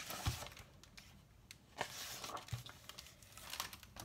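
Pages of a picture book being turned and the book handled: faint paper rustling and crinkling, with a couple of soft thumps.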